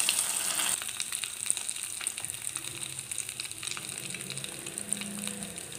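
Cornflake-coated fish balls deep-frying in hot oil in a small pan: a steady sizzle with many small crackles, loudest in the first second just after they go into the oil, then settling.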